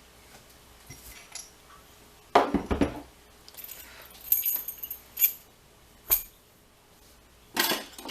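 Metal clicks and clinks as a lock and metal tools are handled and set down, in irregular clusters with the loudest about two and a half seconds in.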